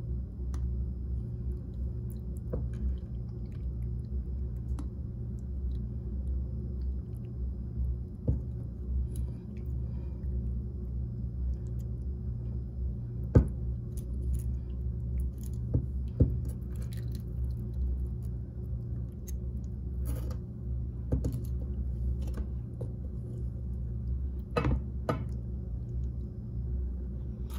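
A spoon ladling thick sauce over a bowl of shrimp boil: wet squishing with scattered sharp taps, the two loudest about 13 and 16 seconds in, over a steady low hum.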